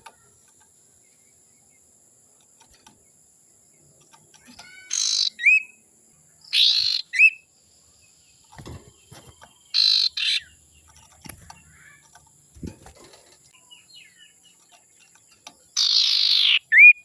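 Common iora (cipoh) calling: four harsh, rasping calls spaced a few seconds apart, most ending in a short rising whistle.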